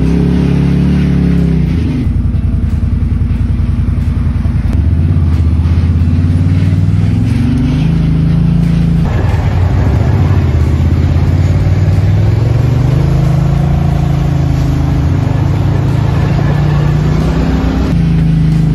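Can-Am Maverick side-by-side's engine running on a rough dirt trail, its pitch rising and falling with the throttle and shifting suddenly a few times.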